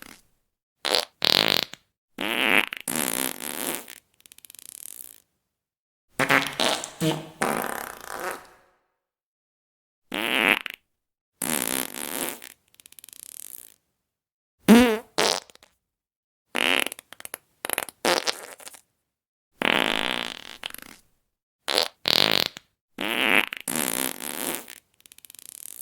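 A string of fart sounds, about fifteen separate ones, each lasting from a fraction of a second to about two seconds, with dead silence between them. Some are short and sharp and others are longer and ragged; one about fifteen seconds in dips low in pitch and then rises.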